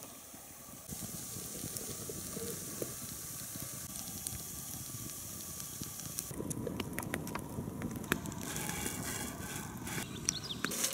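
Wood campfire crackling, with many small pops.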